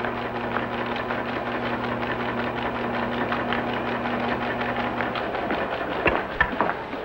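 Sound effect of a 1950s TV sci-fi computing machine running a calculation: a steady electrical hum under rapid mechanical clatter. It stops about five and a half seconds in, followed by a few sharp clicks.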